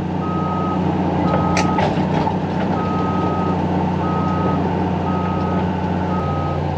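Older 315 excavator's diesel engine running steadily while its travel alarm beeps about once a second, six beeps on one tone, as the machine tracks forward.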